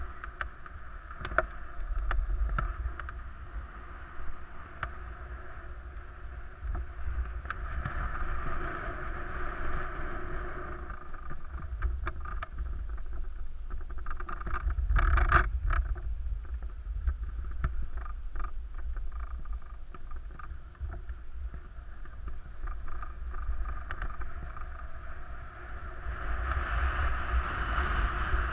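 Skis sliding and scraping over packed snow on a downhill run, with wind rumbling on the microphone. There is a louder scrape about fifteen seconds in, and the hiss swells again near the end.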